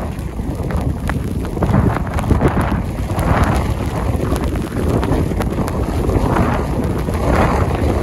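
Blizzard wind buffeting the microphone, a loud rumble that rises and falls in gusts, with the hiss of wind-driven snow.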